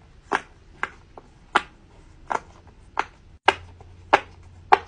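S'more-shaped silicone pop-it fidget toy having its bubbles pressed one after another along a row: a string of about eight sharp pops, roughly one every half second.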